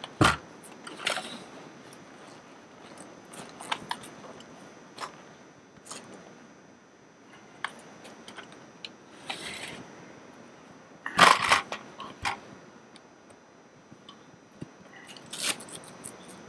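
Hand-handling noises of an upholstery cover being fitted over a metal seat base frame: irregular clicks and knocks of the frame and its plastic parts, with rustling and scraping of the cover material. The loudest clatter comes about eleven seconds in, with other sharp knocks near the start and near the end.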